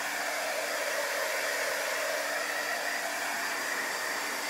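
Handheld hot-air drying tool blowing steadily, a constant rushing hiss with a faint hum, as it dries freshly applied chalk paste on a chalkboard.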